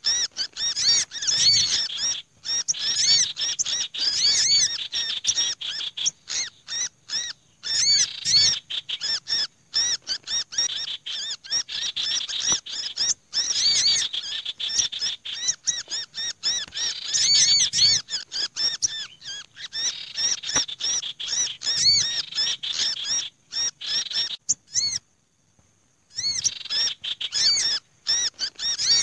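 Bird-lure recording of small birds calling in an agitated, crowded chorus: common iora chattering, mixed with olive-backed sunbird and black-naped monarch calls, as rapid high chirps that overlap one another, with a short break near the end. The mix imitates birds in alarm as if caught ('kejepit'), a lure meant to draw small birds down.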